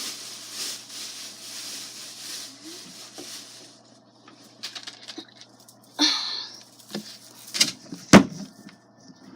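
Handling noise as a large plastic jug of Tide laundry detergent is fetched: a soft rustle, then scattered clicks and knocks, a short scrape about six seconds in and two sharp thumps near the end, the last one loudest.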